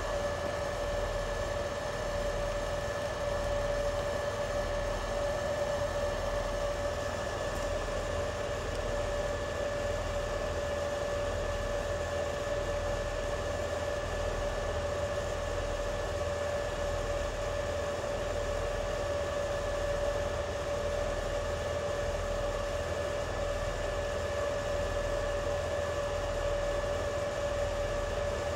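Steady machine hum with a constant mid-pitched whine over even fan-like noise, unchanging throughout.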